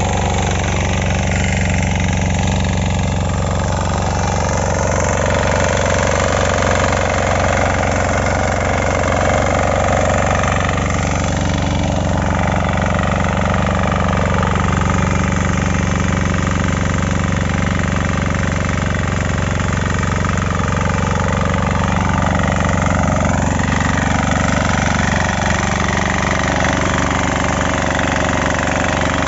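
Kisan Kraft 6 HP inter cultivator's small engine running at a steady speed while it ploughs.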